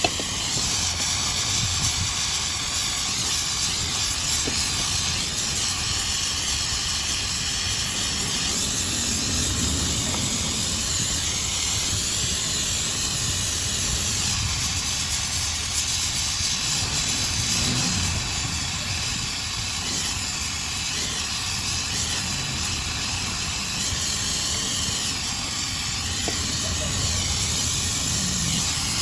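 A steady hiss over a low rumble, unbroken and even in level.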